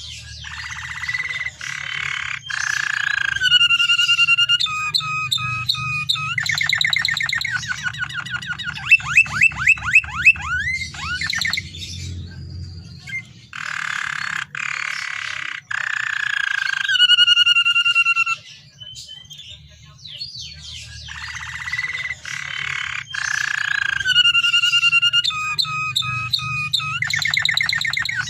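Canary singing a long, varied song of rapid trills, rolls and sweeping whistled notes in quick succession, with short breaks between phrases; the same run of phrases comes round again about halfway through. A steady low hum lies underneath.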